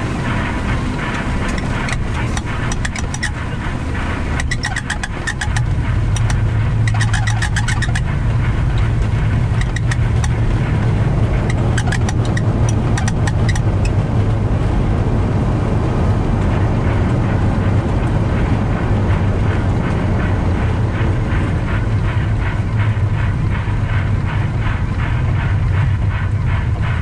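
Flight-deck noise of an Embraer 175 rolling along a wet runway in heavy rain: a steady rumble and hiss, with rain and windshield wipers working on the windscreen. A low drone steps up about five seconds in and holds, over scattered light clicks.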